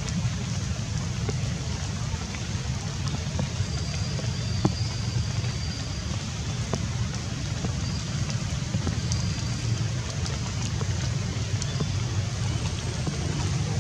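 Steady low outdoor rumble, with scattered faint clicks and a few brief thin high tones.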